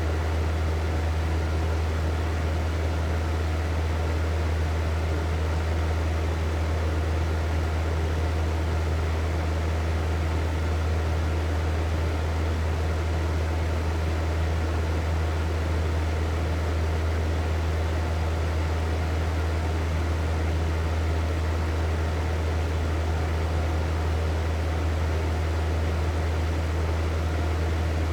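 Hair dryer running steadily: a constant blowing rush over a strong low motor hum.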